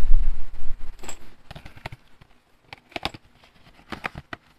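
Packaging handled by hand: a plastic bag crinkling and a cardboard box flap being opened, heard as scattered short rustles and clicks. A low rumble of handling noise fills the first second.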